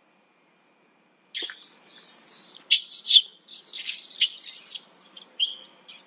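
Macaques screaming: shrill, high-pitched screams break out about a second in, several long ones followed by shorter squeals that rise and fall near the end.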